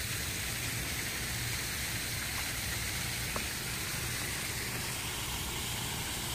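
Steady, even hiss over a low rumble, with one faint click a little over three seconds in.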